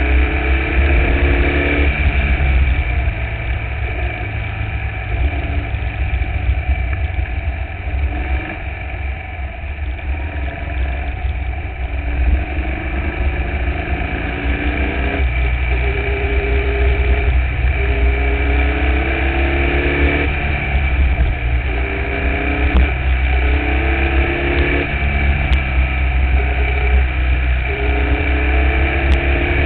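Formula Vee race car's air-cooled Volkswagen flat-four engine at racing speed, its note climbing in pitch again and again and dropping back as the car works through the gears. A heavy low wind rumble on the onboard microphone runs underneath.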